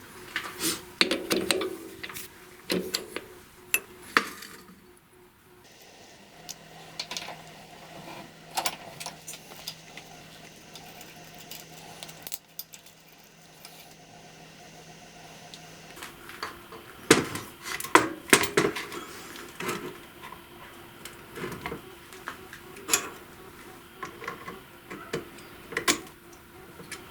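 Small metal parts and tools clinking and knocking as they are handled, in scattered irregular strikes, with a faint steady hum in the middle stretch.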